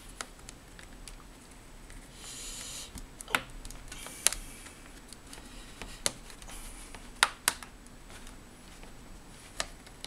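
Plastic snap-fit clips of a laptop's bottom cover popping loose as it is pried open by hand: a series of sharp clicks a second or more apart, with a short plastic rasp about two seconds in.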